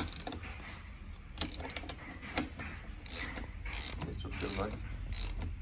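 Socket ratchet wrench turning the output shaft of a freshly rebuilt ATV rear gearbox in gear: the gears turn inside the case and the ratchet's pawl clicks in a short run on each back-stroke, repeating about every two-thirds of a second. It is a hand test after the rebuild with new bearings and seals, checking that the pinion turns.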